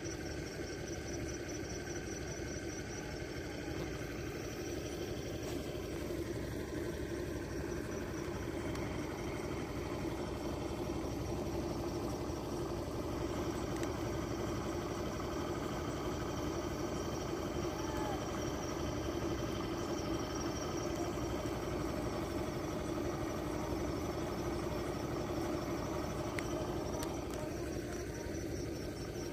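An engine idling steadily, an even low drone that does not change.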